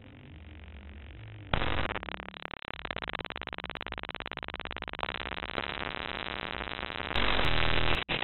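Databent glitch audio made from the data of a scanned fox painting: a faint low hum swells, then about a second and a half in a loud harsh buzz breaks in, stuttering in fast even pulses. Near the end it turns into a louder burst of static that cuts off abruptly.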